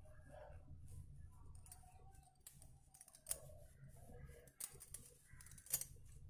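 Faint scattered clicks and taps from a hand handling crocheted wool pouches, over a low steady room hum, with a few sharper clicks in the second half.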